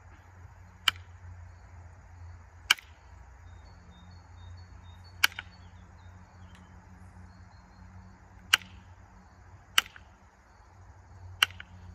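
Moose antler tool striking the edge of a flint spear point, knocking off small flakes: six sharp clicks spaced one to three seconds apart, over a faint low hum. This is the final shaping and sharpening of the point's edge.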